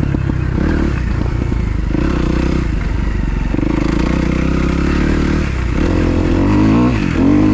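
A freshly rebuilt 2012 Kawasaki KX250F's single-cylinder four-stroke engine running under throttle on the track, its pitch rising and falling with throttle and gear changes. Near the end there is a quick throttle chop before it revs back up.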